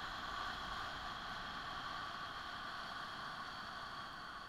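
A woman's long, steady whispered 'haaa' breathed out through the open mouth: the heart sound of the Taoist healing-sounds practice, tailing off slightly near the end.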